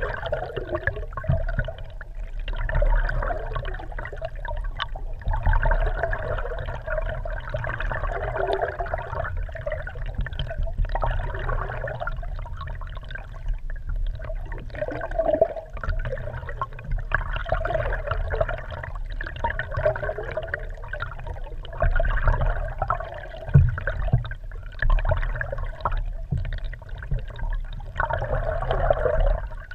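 Water gurgling and sloshing around a GoPro Hero3 camera housing mounted under a moving kayak, heard muffled through the housing: a steady low rumble with surges every two to three seconds.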